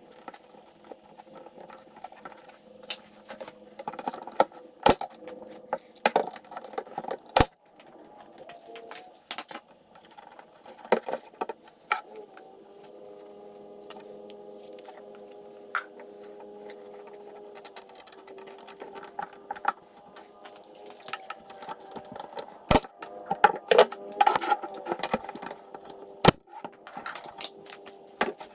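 Woodworking handling noise: wooden boards and quick-grip clamps being shifted, with knocks and taps and a few sharp single cracks spread through. A faint steady tone runs underneath from about halfway on.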